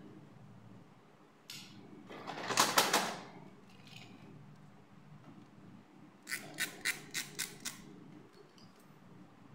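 Small plastic doll accessories being handled and set down: a loud rustle of handling about two to three seconds in, then a quick run of about six light plastic clicks.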